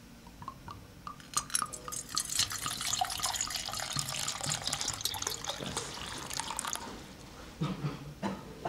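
Water dripping a few times, then pouring and splashing for about five seconds before stopping abruptly, followed by a few low thumps near the end.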